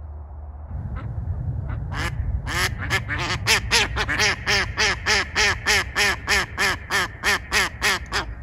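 Hen decoy duck quacking in a long, evenly paced series of about three to four quacks a second, starting about two seconds in: the hen's landing call ("осадка") given at an approaching drake. Low wind rumble underneath.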